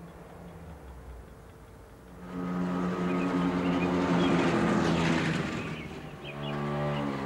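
A small motorbike's engine running as it approaches, coming in loudly about two seconds in with a steady pitch; near the end its pitch drops as it slows.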